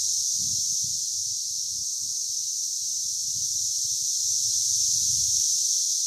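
Brood X periodical cicada males chorusing their mating call: a steady, high-pitched, unbroken whine from many insects at once.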